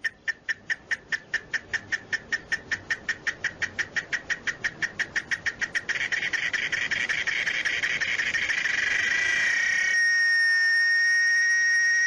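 Male cicada singing with its tymbals: a run of sharp, evenly spaced pulses, about six a second, that merge into a continuous buzz about halfway through and settle into a steady, whistle-like tone near the end, growing louder as it goes.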